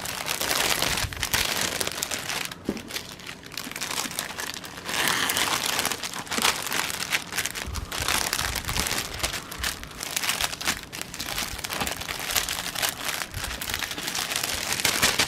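Packaging crinkling and rustling irregularly as it is handled and pulled open.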